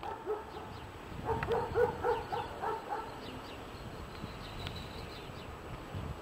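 A dog barking, a quick run of about seven barks over roughly two seconds, starting about a second in.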